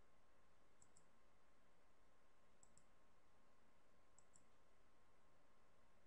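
Three faint computer mouse clicks, each a quick double tick of the button going down and coming up, about one and a half to two seconds apart, over a near-silent background hiss.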